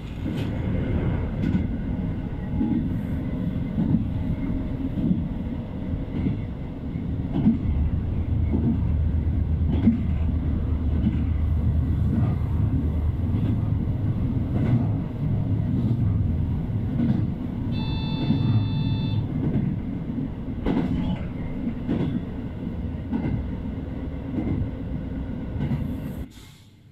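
Running noise of a JR Hokkaido H100 'DECMO' diesel-electric railcar at speed, heard from inside the car: a steady loud rumble with repeated clicks of the wheels over the rails. A brief tone sounds about two-thirds of the way through, and the noise drops away sharply just before the end.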